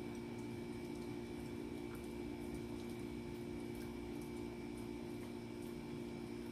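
A small dog chewing a chew stick: faint, irregular clicks of its jaws and teeth over a steady hum.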